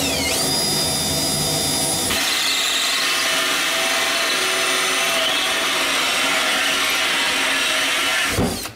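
Cordless drill driving a hole saw through a wooden cabinet side panel: the motor whine holds steady, the cut turns rougher and noisier about two seconds in, and the drill stops near the end as the hole is finished.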